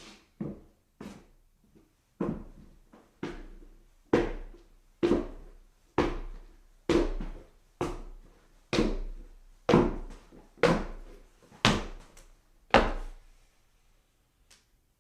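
Footsteps on a staircase: a steady series of heavy thudding steps, about one a second, about fourteen in all, growing louder from about four seconds in and stopping near the end.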